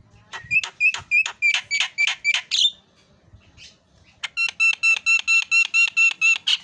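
Javan myna calling in two runs of rapid, evenly repeated whistled notes, part of the mimicked 'isian' repertoire trained into kept mynas. The first run goes about four notes a second. After a pause of about a second and a half comes a faster run of clear, beep-like notes, about six a second.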